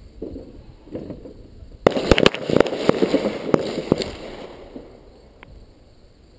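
Gunshots from M9 9 mm pistols on a firing range: a loud first shot about two seconds in, then a quick string of several more shots over the next two seconds, echoing, before it dies down.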